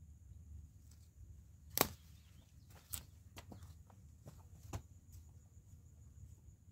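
A few sharp clicks, the loudest about two seconds in and two more near three and five seconds, over a steady high insect drone and a low rumble.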